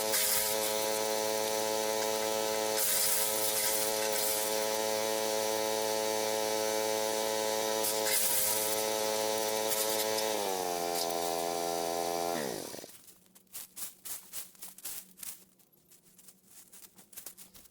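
A Forest Master FM6DD wood chipper's small 6 hp petrol engine running steadily, easing down slightly in pitch about ten seconds in, then shut off and winding down to a stop. Scattered faint clicks and rustles follow.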